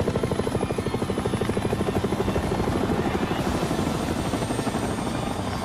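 Bell UH-1 Huey helicopter hovering close, its two-bladed main rotor beating in a fast, even chop of about ten beats a second over a rushing wash of air. The beat grows less distinct after about three and a half seconds.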